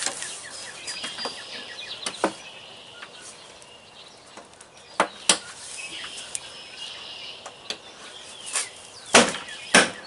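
Sharp knocks of a hand striking a truck's vinyl-covered inner door trim panel to drive its push-in clips into their holes: two close together about five seconds in and two more near the end. Birds chirp faintly in the background.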